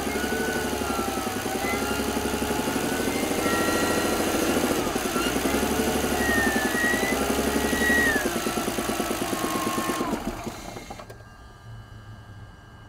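BMW 330Ci inline-six engine idling just after a rev, with a loud whistle wavering in pitch over a rapid knock. The owner believes the whistle is the belt tensioner and suspects the knock could be a piston or rod knock. About ten seconds in the engine stops, the whistle falling away with it.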